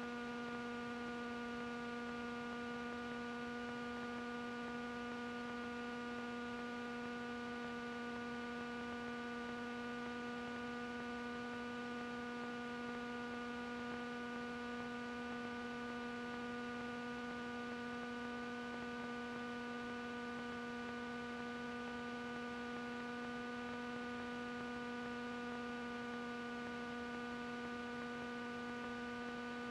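Steady electrical hum in the recorded cockpit audio: one unchanging pitch with a row of overtones over faint hiss.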